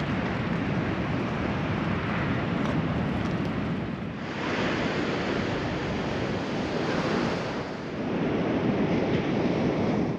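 Surf washing on the beach, with strong wind on the microphone, a steady rush that swells and eases in surges every few seconds.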